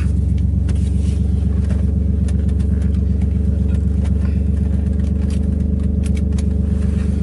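BMW E36's straight-six engine idling steadily just after a cold start, heard from inside the cabin with the windows up.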